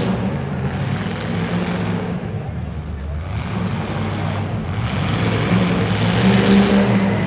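Demolition derby car engines running and revving, the engine note rising and falling and swelling louder near the end.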